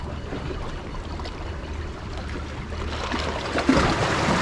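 Sea water washing against shoreline rocks, swelling about three seconds in as a wave comes in, over a low steady rumble of wind on the microphone.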